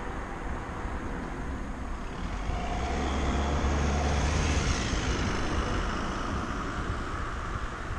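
A car overtaking from behind. Its engine and tyre noise swells to a peak about four seconds in, then fades as it pulls away ahead. The car is a small Audi A1 hatchback.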